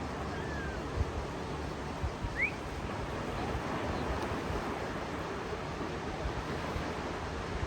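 Sea waves washing on the shore as a steady rushing hiss, with occasional low thumps and one short rising chirp about two seconds in.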